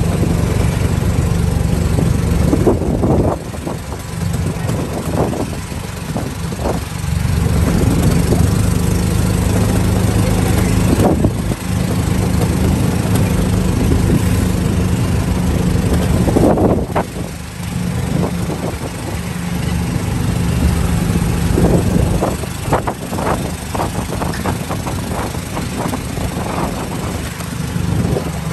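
Small petrol engine of a golf cart running steadily under way. Its note drops back briefly about three seconds in and again about seventeen seconds in.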